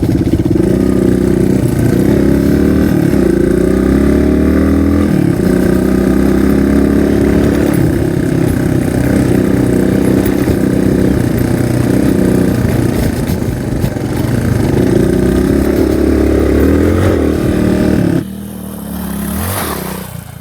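Single-cylinder dual-sport motorcycle engine running under way, its pitch rising and falling with the throttle. The engine sound drops off sharply about two seconds before the end.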